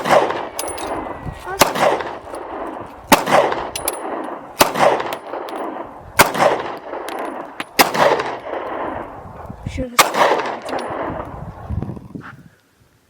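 HK USP Compact 9mm pistol firing seven shots, about one every one and a half seconds, with a longer pause before the last. Each sharp crack is followed by a rolling echo.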